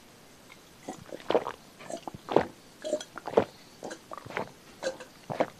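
A man gulping water from a glass close to the microphone: after about a second, a run of swallows at about two a second.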